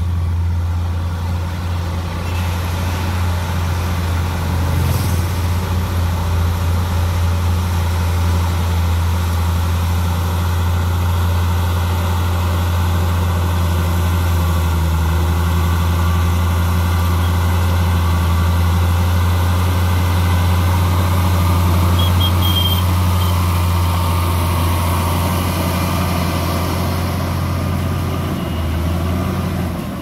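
Crawler bulldozer's diesel engine running with a steady low drone as it pushes soil with its blade.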